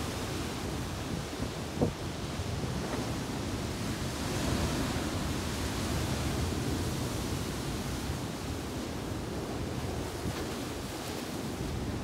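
Ocean surf breaking on a rocky granite shore: a continuous rushing wash that swells louder about four seconds in as a big wave breaks. A single brief knock comes about two seconds in.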